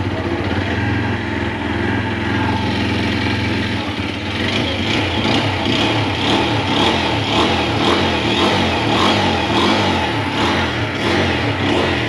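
TVS Apache 160 4V's single-cylinder four-valve engine running after a top-end rebuild with a new camshaft and rocker arms, fitted to cure a tappet ticking noise. It runs steadily, then from about four seconds in it takes on a regular pulsing beat.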